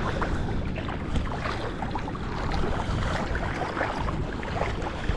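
Wind buffeting the microphone in a steady low rumble, over a continual scatter of small water splashes and sloshing at the shoreline.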